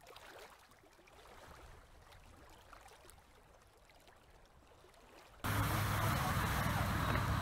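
Outdoor lakeside ambience cutting in abruptly about five and a half seconds in: a loud rushing noise over a steady low hum. Before it, only a faint rushing hiss.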